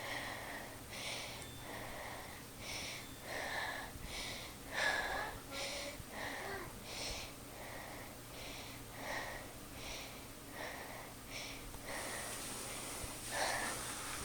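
52-inch hugger-style ceiling fan running: a steady low motor hum under a rhythmic whoosh that repeats about every two-thirds of a second.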